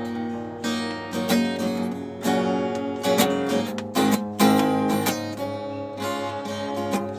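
Acoustic guitar strummed in a steady rhythm, an instrumental passage between sung verses of a song.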